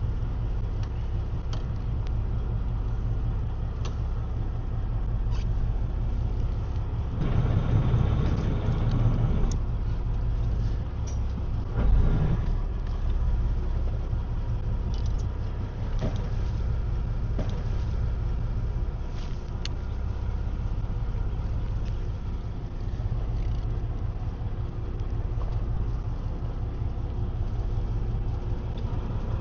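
Fishing boat's engine running steadily with a low rumble. A louder rushing noise rises over it for a couple of seconds about seven seconds in, and there is a single knock around twelve seconds.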